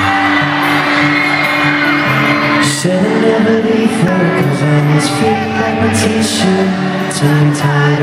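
Live pop band music played in an arena, with singing: sustained chords at first, then a regular drum beat comes in about three seconds in.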